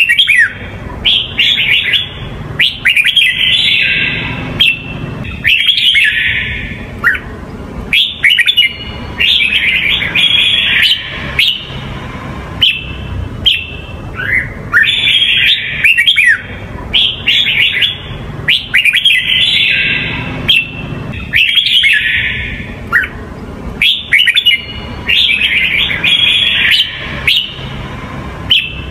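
Red-whiskered bulbul singing: loud, short warbled phrases repeated every couple of seconds, with brief sharp clicks between them.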